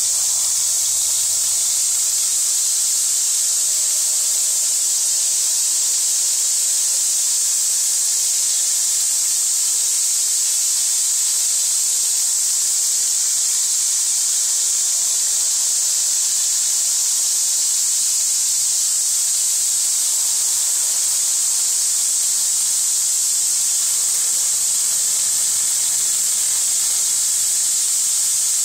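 Hose nozzle spraying a steady jet of water into a shallow plastic tub of water: a constant, high hiss.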